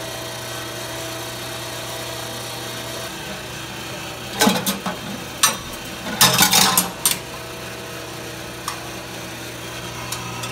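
Commercial deep fryer's filter pump motor running with a steady hum as it pumps filtered oil back into the fryer vat. Several sharp metal clanks and scrapes come between about four and seven seconds in.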